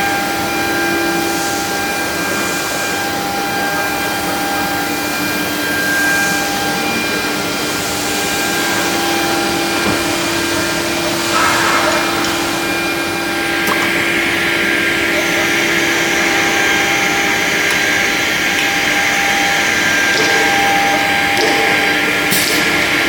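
ELE2128ATC CNC router running, a continuous machine whine with several steady tones over a band of noise that changes about 14 s in.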